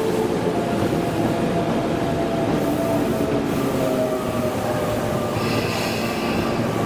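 A Tokyo Metro Hibiya Line train moving at a station platform: a steady rumble of wheels on rail with a low motor whine that shifts slowly in pitch. A higher-pitched sound joins about five seconds in.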